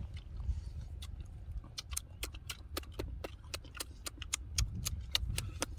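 Close-up eating sounds of roast duck eaten by hand: wet lip-smacks and chewing clicks, several a second at an uneven pace, over a low rumble.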